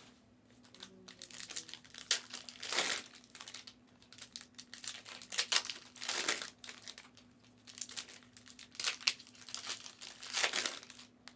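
Plastic trading-card pack wrappers being torn open and crinkled by hand, in repeated short rustling bursts.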